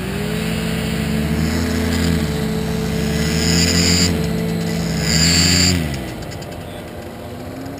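Paramotor engine and propeller throttled up and held at high revs, dipping briefly twice, then throttled back to a lower steady idle about six seconds in.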